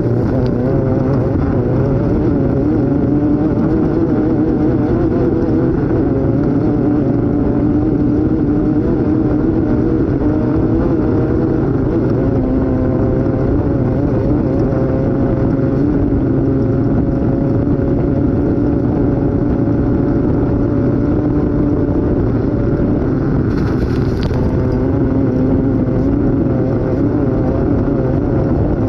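Off-road race vehicle's engine running hard at speed, heard from on board, its revs wavering slightly up and down over a constant rumble from the ride over rough ground. A short hiss comes in briefly about two-thirds of the way through.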